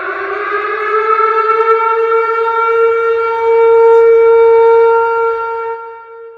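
Tornado siren wailing: its pitch rises over the first second or two, then holds as a steady wail that swells louder midway and fades out near the end.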